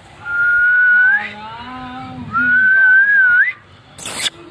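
A person whistling two long, steady notes, each rising in pitch at its end, with a fainter wavering tone beneath. A short hissing rustle follows near the end.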